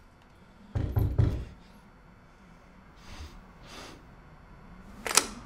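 Knocking on a door: a quick cluster of heavy knocks about a second in, then a sharp knock or clack near the end.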